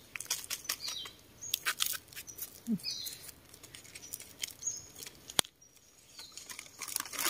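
Dry leaf litter rustling and crackling in short scattered rustles as hands pick mushrooms from the forest floor, with a few short high bird chirps and one sharp click about five seconds in.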